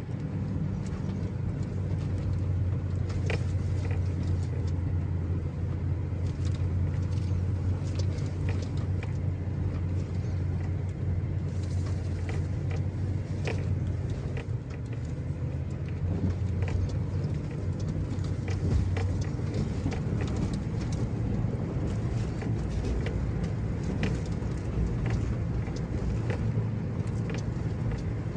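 Ford F-350 pickup truck driving slowly over a rough dirt track, heard from inside the cab: a steady low engine hum with many scattered knocks and rattles from the bumpy ground. The engine hum eases about halfway through.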